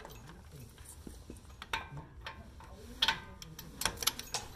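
A few sharp, irregular metal clicks and clinks from a socket on a long-handled wrench working a brake caliper bolt. The loudest cluster comes about three to four seconds in.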